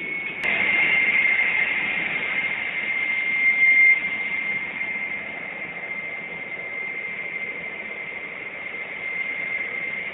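Steady high-pitched whine with a rushing hiss from a parked jet airliner, louder for the first four seconds and softer after. A single click just after the start.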